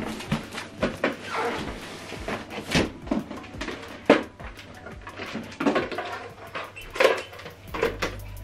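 Large cardboard boxes being tilted, slid and set down on a table: rustling and scraping of cardboard with irregular knocks, the sharpest about four seconds in and again about seven seconds in.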